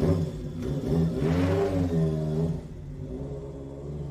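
Motorcycle engine idling and revving, its pitch swinging up and down in smooth sweeps over a steady low hum.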